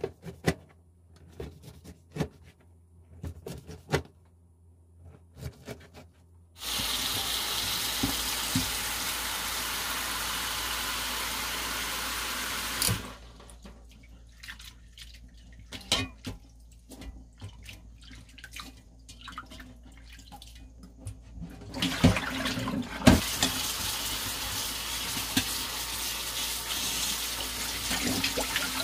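A knife taps through bracken stems onto a plastic cutting board in scattered cuts. About seven seconds in, a kitchen tap starts running into a stainless-steel sink and stops about six seconds later, followed by quiet splashing and clinking as hands work the bracken in a pot of water. From about twenty-two seconds the tap runs again onto a mesh strainer of bracken being rinsed, with a couple of metal knocks as it starts.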